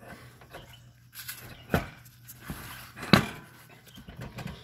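Riding mower front wheel being slid onto its spindle and rocked by hand, giving a few irregular knocks and clunks, the loudest about three seconds in. The knocking is play in the wheel's new plastic bushings, which still let it wobble somewhat.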